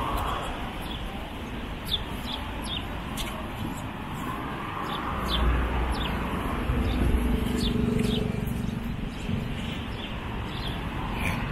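Small birds chirping in short, high, falling notes, repeated many times, over steady city street noise. A motor vehicle passes in the middle, its low engine hum swelling and fading.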